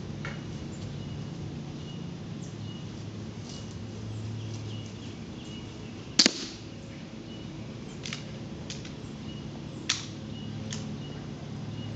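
Daisy 953 single-stroke pneumatic air rifle firing a pellet: one sharp crack about six seconds in, followed by a few fainter clicks, over a steady low hum.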